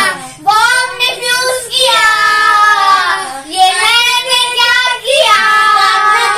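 Children singing loudly in high, drawn-out notes, in about four phrases with short breaks between them.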